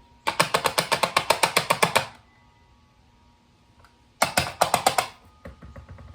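Two runs of rapid plastic clicking, about ten clicks a second, from parts of a Shark Rocket stick vacuum being handled; the second run is shorter and trails off into a few softer clicks.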